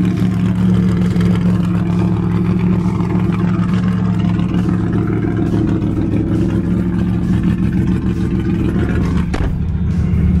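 A classic Ford Mustang fastback's engine idling steadily, with a single sharp knock about nine seconds in.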